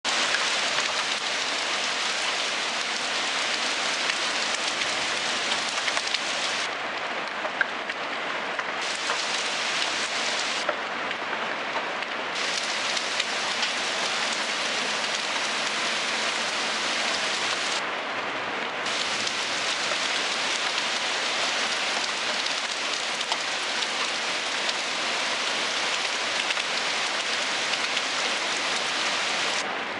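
Heavy rain pouring down onto pavement and parked cars, a dense steady hiss with occasional sharp ticks of individual strikes.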